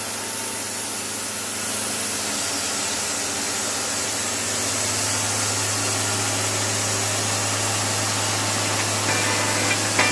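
Wood-Mizer bandsaw mill running at a steady pitch with a hissing rush as the band blade cuts through a white oak log. Music comes in about a second before the end.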